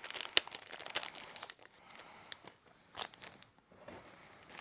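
Crinkling of a small plastic bag with scattered sharp clicks, as Lego minifigure parts are handled.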